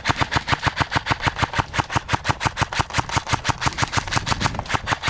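Airsoft gun firing on full auto in one continuous burst, an even rattle of about eight shots a second.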